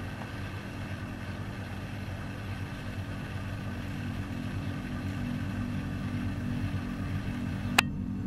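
An engine running steadily, a low hum that slowly grows louder, with one sharp click near the end.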